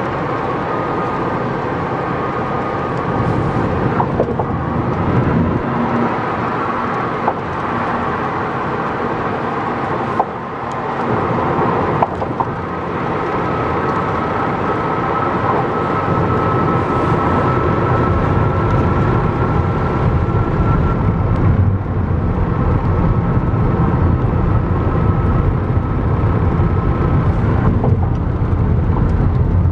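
Steady road and tyre noise of a car at highway speed, heard inside the cabin, a little louder in the second half. A faint steady high whine joins about twelve seconds in, with a few small clicks.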